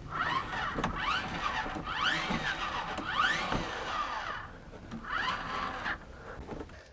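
MaxxFan Deluxe 7500K roof fan's powered lid closing: its lid motor runs with squealing glides that rise and fall, stops about four and a half seconds in, then runs briefly again about a second later.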